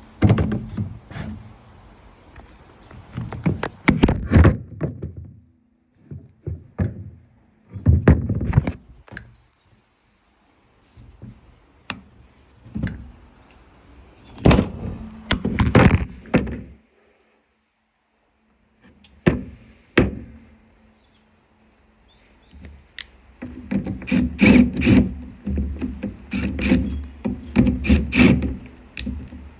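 Irregular clusters of hard clunks and knocks as the parts of a cordless circular saw are handled, separated by quiet pauses; the saw's motor does not run.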